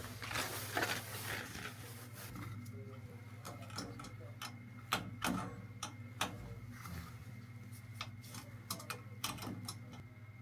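Irregular sharp clicks and light knocks of handling, with a short rustle near the start, over a steady low hum.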